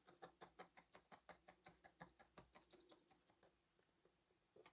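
Felting needle stabbing quickly into loose wool over a foam mat: faint rapid taps, about five or six a second, that die away a little after halfway.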